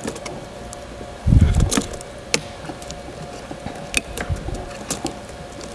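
Sharp plastic clicks and taps from a Panasonic Toughbook CF-30 keyboard being pressed down and prodded with a small tool as it is worked into its seat. A dull thump comes about a second and a half in, and a faint steady hum runs underneath.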